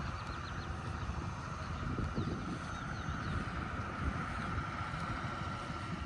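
Wind buffeting the microphone in an uneven low rumble, with a faint steady tone underneath and a few faint short chirps high up in the first half.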